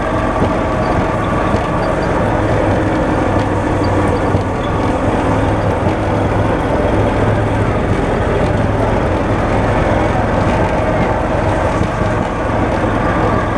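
John Deere Gator utility vehicle under way, its engine running with a steady, even drone, heard from on board.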